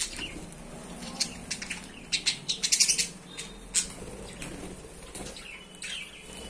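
Pet budgerigars chirping in short, high tweets, mixed with quick clicks, densest about two to three seconds in, and a few brief whistled notes near the end.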